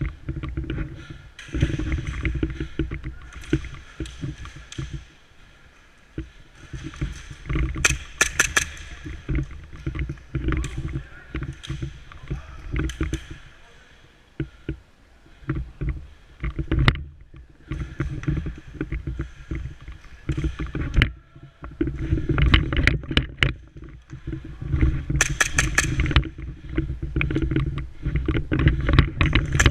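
Rumbling movement and handling noise on a body-worn camera, with several quick clusters of sharp snaps from airsoft guns firing.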